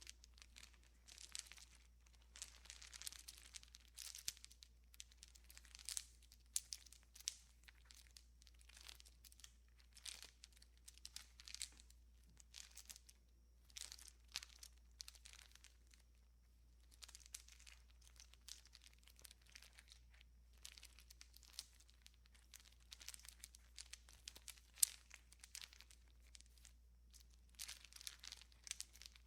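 Leafy plant matter crackling and tearing in quick irregular bursts, a comic sound effect of someone munching on bush leaves.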